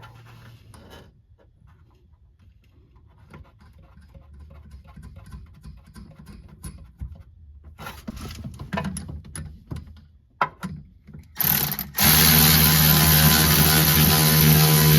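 Scattered light clicks and rattles of a wrench and the shock's mounting hardware being worked by hand. About twelve seconds in, loud guitar music starts and covers everything.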